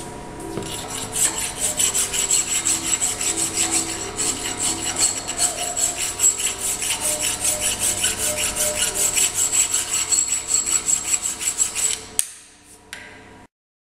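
Hand file rasping across mild steel wedges clamped in a bench vise, in a steady run of quick back-and-forth strokes that stops abruptly about twelve seconds in. The wedges are being filed because they are a little too tight and need to slide smoothly against each other.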